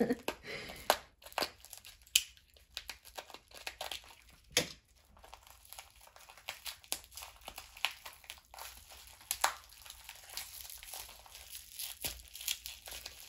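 Packing wrap being crinkled and torn by hand while unwrapping a small item: irregular crackles and rustles, with a few louder sharp rips.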